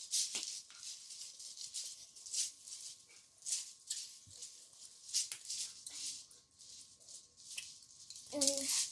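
Irregular short rustles and shuffles of a child moving about while dancing, with a brief voiced sound near the end.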